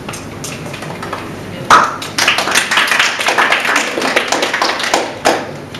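Audience applauding: a short round of clapping that starts about two seconds in and dies away near the end, with a sharp knock just before it starts.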